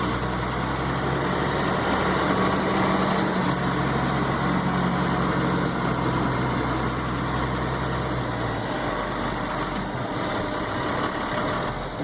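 Caterpillar 3116 diesel engine of a GMC C8500 truck running, heard from the cab, with a steady low engine note that changes and drops away about eight and a half seconds in.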